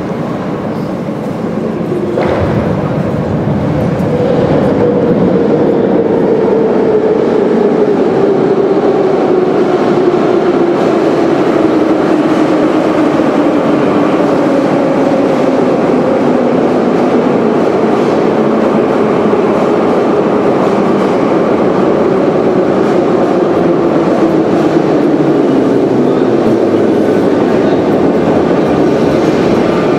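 Moscow Metro subway train pulling into the station and slowing to a stop. The rumble grows loud about two seconds in, and the motors' whine falls slowly in pitch as the train brakes.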